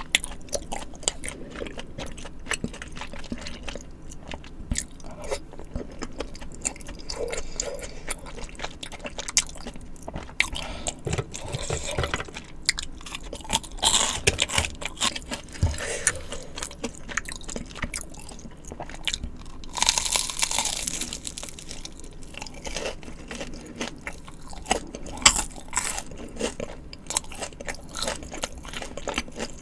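Close-miked ASMR eating: wet chewing, biting and crisp crunches of food, in an irregular stream of small mouth clicks. A louder, longer burst of noise comes about twenty seconds in.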